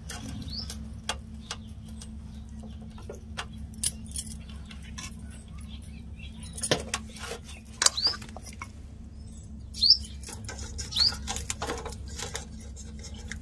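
Scattered clicks and taps of a spoon on a plate as potato masala filling is spread onto burger buns. A bird gives a few short rising chirps.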